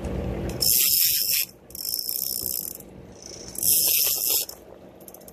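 Clicker ratchet of a big-game conventional fishing reel buzzing as line is pulled off the spool, in three high-pitched bursts about a second long each.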